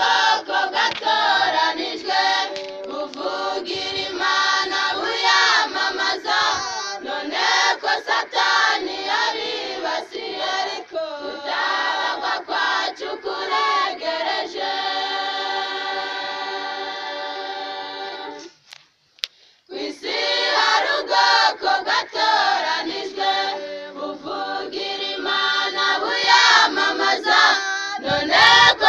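A choir of many voices singing together, holding one long chord for about four seconds past the middle, then breaking off for a moment before singing on.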